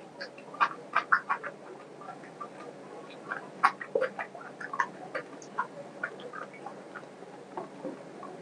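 Close-up eating sounds of a man chewing a mouthful of chicken curry and rice eaten by hand: irregular wet smacks and clicks of the lips and mouth, thickest in two clusters, about a second in and again around four seconds in.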